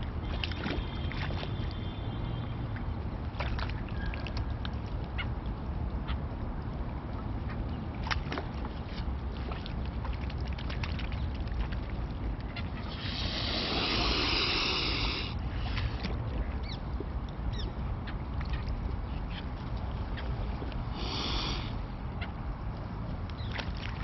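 Mute swans hissing: one long hiss of about two seconds, starting about halfway through, and a shorter one near the end. It is a warning hiss at a dog come close to the water's edge. Under it run a low rumble of wind on the microphone and small splashes of water.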